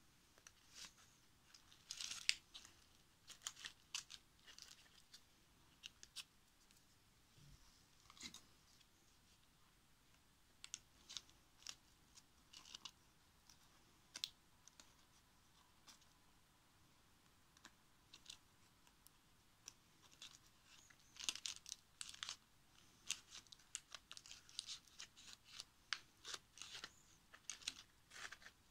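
Dry autumn leaves crackling faintly as hands handle them and press them onto a woven base, in scattered bursts that come thickest about two seconds in and again near the end.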